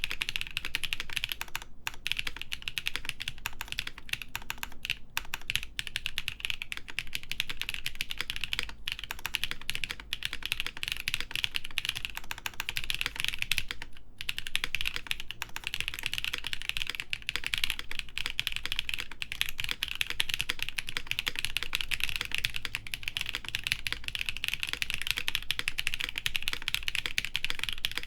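Steady, fast typing on a Gray Studio Think 6.5 v3 mechanical keyboard with lubed Designer Studio Graphite Gold switches, FR4 plate and GMK keycaps: a dense run of key clacks with brief pauses now and then.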